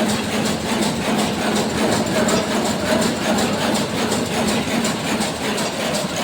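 Power loom for saree weaving running: a steady, rhythmic mechanical clatter over a constant hum.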